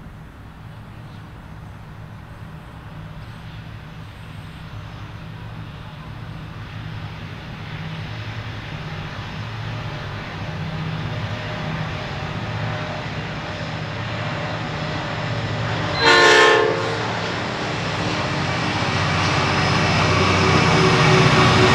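Three EMD 16-710G3A-engined 90 class diesel-electric locomotives working hard, hauling a heavy coal train up a grade, their steady low engine drone growing louder as they approach. About three-quarters of the way in, one short horn blast sounds.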